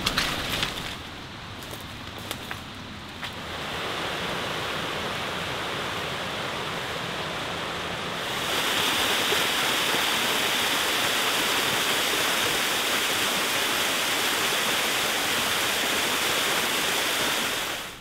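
Footsteps crunching on wet leaf litter and twigs for the first few seconds, then the steady rush of a waterfall, growing louder about eight seconds in and fading out near the end.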